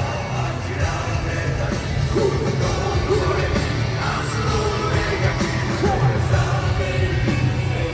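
Live rock band playing a loud, driving Japanese hard-rock song, with drums and distorted guitars under a male singer's shouted vocals.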